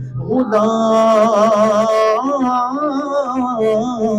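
A man singing an Urdu devotional salam unaccompanied into a microphone, holding one long note with a wavering, ornamented pitch, then sliding on through further notes without words.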